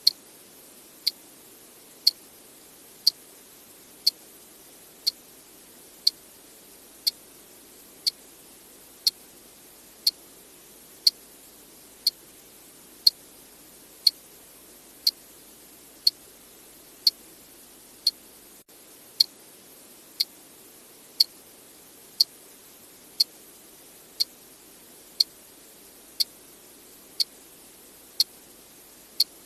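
Clock ticking steadily, one sharp tick a second, over a faint steady hiss.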